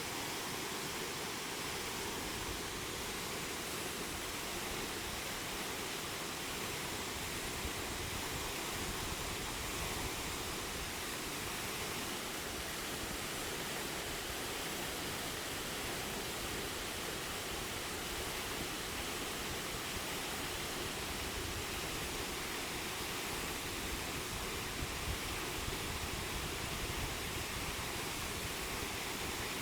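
Waterfall's steady rush of falling water, an even, unbroken noise.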